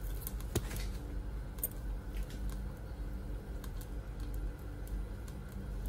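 A few light, scattered clicks and ticks over a steady low hum, the sharpest click about half a second in.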